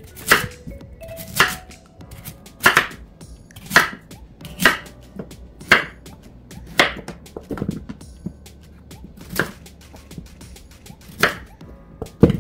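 Kitchen knife slicing through a large Korean radish (mu) and striking a wooden cutting board, cutting thick rounds at a steady pace of about one chop a second.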